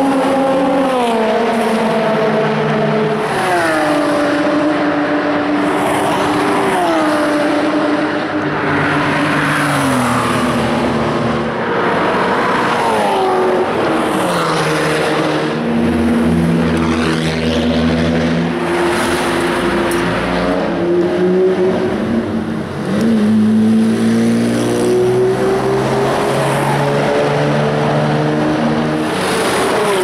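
Sports and race car engines moving through a race-track pit lane one after another. The engine note drops in steps several times in the first half, then a deeper engine note runs steady and rises again a little past two-thirds of the way in.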